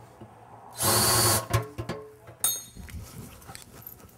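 A power drill spinning a larger bit in a freshly drilled hole in the stainless air cleaner, deburring it from the inside: one short, loud burst of about half a second, followed by a few small knocks.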